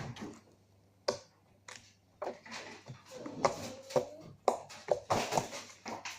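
Activated slime being squeezed and kneaded by hand, giving irregular sticky clicks and pops that come more often from about two seconds in, with a wet rustle between them.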